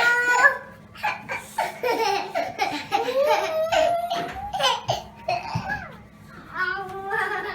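A young child laughing and vocalizing in a sing-song voice, in a string of short bursts with some held notes.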